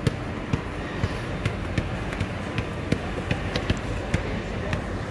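Irregular sharp knocks, two or three a second, over the steady hum of a busy warehouse store.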